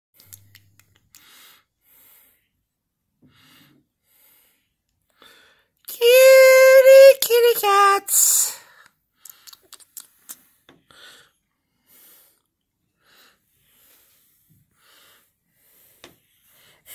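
A high, drawn-out voice about six seconds in: one held note that wavers and drops over about two seconds, then ends in a short hiss. Faint scattered ticks and rustles fill the rest.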